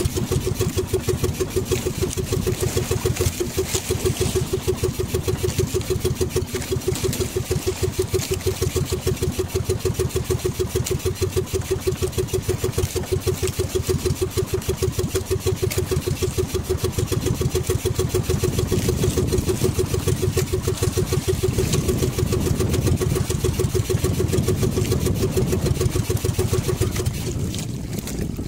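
Small engine of a motorized outrigger boat (bangka) running steadily with a rapid, even putter, dropping away near the end.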